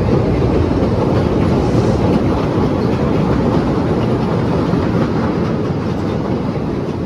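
Passenger rail car in motion, heard from inside: a steady, loud low rumble of wheels on the rails.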